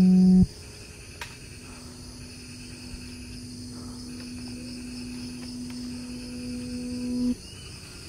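A steady chorus of insects trilling with a fast pulse, under background music: a loud held note cuts off about half a second in, and a low sustained note swells from about two seconds in until it stops near the end.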